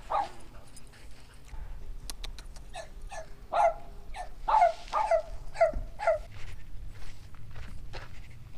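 A dog barking: a quick run of about ten short barks, each dropping slightly in pitch, starting about three seconds in and lasting about three seconds.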